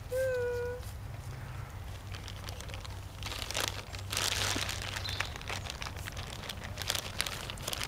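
Paper crinkling and rustling in a run of crackles from about three seconds in, as food wrapped in paper is handled. A brief steady hummed note sounds right at the start.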